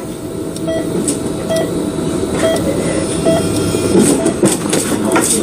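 Bedside heart monitor beeping at an even pace, a little faster than once a second, over a steady low rushing hum of ward machinery. A few light clicks or rustles sound near the end.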